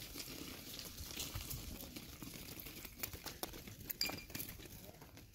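A flock of sheep and a shepherd walking on loose gravel and stones: irregular crunching and clicking of hooves and footsteps, with one sharper click about four seconds in.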